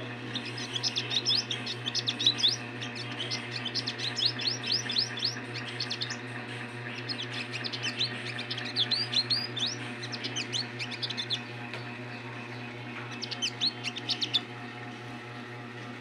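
Male olive-backed sunbird giving quick runs of high, downward-sweeping chirps, several a second, with short pauses about six and twelve seconds in. A steady low hum runs underneath.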